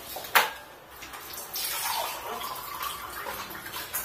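Water running from a tap into a container for about two seconds, after a single sharp knock about half a second in.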